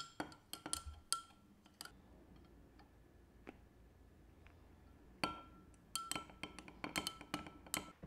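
Metal spoon stirring milk in a tall glass bottle, clinking against the glass with a short ring: a quick run of clinks, a quiet pause of about three seconds, then another run of clinks.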